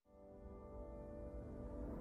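Faint background music fading in from silence: a sustained chord of held tones over a low drone, swelling in loudness.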